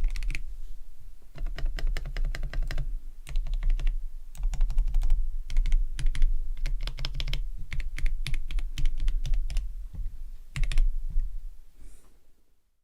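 Typing on a GammaKay K66 mechanical keyboard fitted with lubed and filmed Gateron Yellow linear switches and clipped, lubed, band-aid-modded stabilizers. Fast runs of keystrokes come in bursts with short pauses and fade out near the end.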